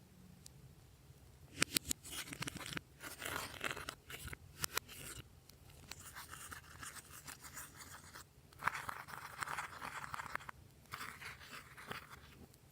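Glossy slime being squished and kneaded by hand: sticky clicks and crackles in bursts of a second or more, with a cluster of sharp clicks near the start.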